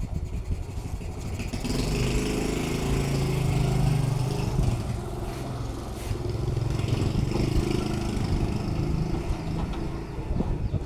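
A small engine running steadily, louder from about two seconds in.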